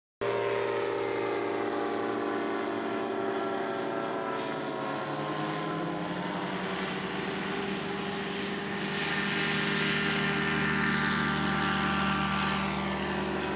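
RANS Coyote S4/S5 ultralight's Rotax two-stroke engine and propeller running through a takeoff from grass, its pitch sliding down over the first few seconds, rising again, and loudest near the end as the plane climbs out.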